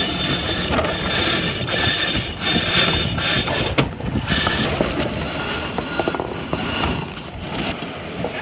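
A racing yacht's deck winches and blocks working as the crew handle the sheets: ratcheting and whirring pawls and lines running through sheaves, busiest in the first half and easing off after about four and a half seconds.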